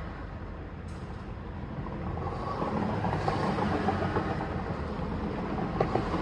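A Mercedes GL450 running with a steady low rumble, with light scattered clicks and rattles and a couple of brief sharp ticks.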